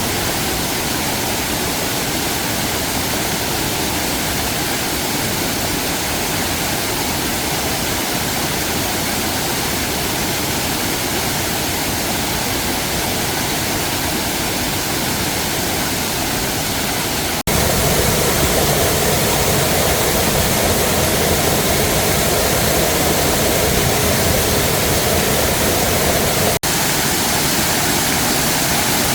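Steady rushing water of a waterfall. About seventeen seconds in it cuts abruptly to a louder, fuller rush, and there is another brief break near the end.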